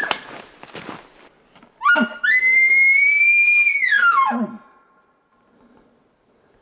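Bull elk bugling: one long whistled call that starts low, climbs steeply to a high held note for about two seconds, then slides back down to a low grunt about four and a half seconds in. Brush and deadfall crackle underfoot in the first second.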